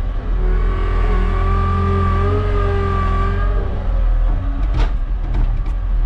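Skid steer engine running with a steady low drone, heard from inside the cab; from about half a second in, a higher whine rises and holds for about three seconds, then drops away. A few sharp knocks sound near the end.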